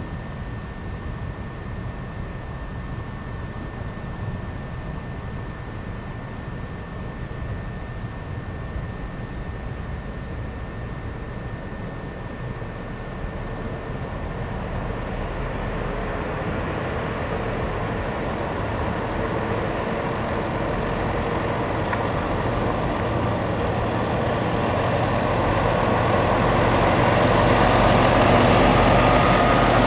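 Volvo FH truck's six-cylinder diesel engine running at low speed as the truck and trailer roll slowly closer, growing steadily louder.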